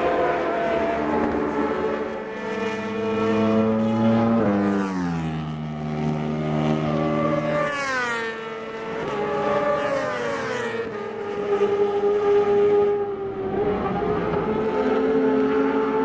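Several World Supersport race motorcycles running at high revs on a circuit. Their engine notes fall in pitch several times, most sharply about halfway through.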